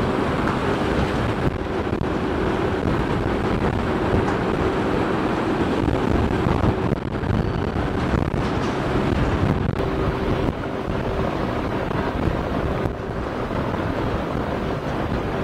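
Steady churning of water and a low engine drone from a river car ferry working its propeller, with wind buffeting the microphone.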